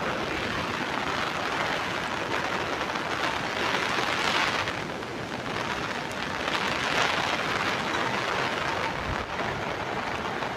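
Steady hiss of heavy rain mixed with the rush of a muddy river in flood, swelling slightly about four and seven seconds in.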